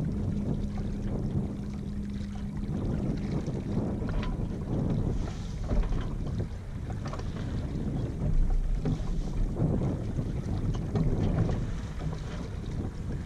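Wind buffeting the microphone and water swishing and lapping along the hull of a Yamaha 24 sailboat moving slowly in light wind, rising and falling in gusts. A low steady hum is under it for the first three seconds or so, then stops.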